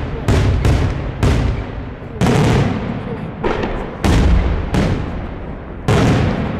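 Daytime fireworks shells bursting overhead in sharp, loud bangs. There are about eight in a row, spaced half a second to a second apart, each followed by a rolling echo.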